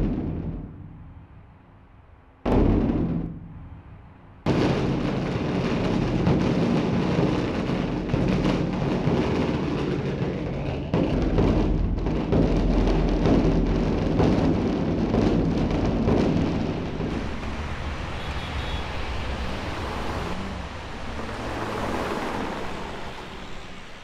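Large temple drum beaten with a wooden stick: two single heavy strikes that ring out and die away, then from about four seconds in a fast, continuous roll that eases off near the end.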